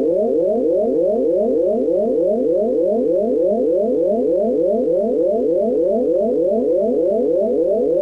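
Synthesized emergency alert tone: a low electronic tone sweeping upward over and over, about four rising sweeps a second, held at a steady loud level.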